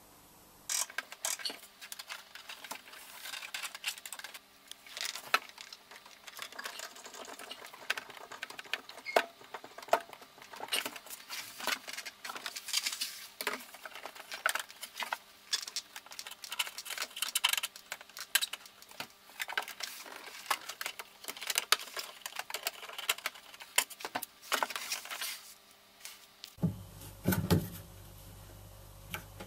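Metal spanners and brass plumbing fittings clinking and clattering, a fast, irregular run of sharp clicks and knocks as the fittings are handled and worked onto copper pipe.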